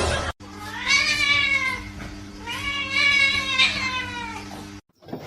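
A domestic cat making two long, drawn-out meows, each rising then falling in pitch, with a steady low hum underneath.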